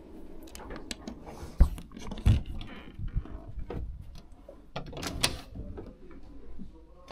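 Wooden knocks and clatter as a wooden-framed glass window is handled and swung open, with two heavy thumps in the first half and a rattling clatter a little past the middle.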